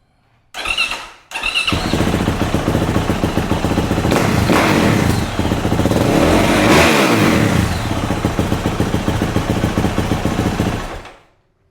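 Yamaha YZ450F single-cylinder four-stroke dirt bike with its stock exhaust started up: a short burst about half a second in, then the engine catches and runs, is revved up and down a few times in the middle, and stops near the end.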